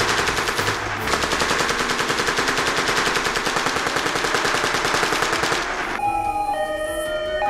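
A long burst of rapid, evenly paced automatic gunfire, with a brief break about a second in, cutting off suddenly near the end. Held organ-like chords follow it.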